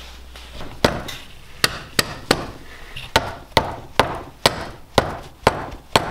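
Red hammer tapping a piston down into a Honda B18 cylinder block during the engine build: a string of about eleven sharp knocks, roughly two a second, starting about a second in.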